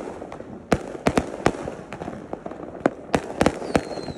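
Aerial fireworks exploding: about a dozen sharp bangs at uneven intervals, with crackling between them and a faint falling whistle near the end.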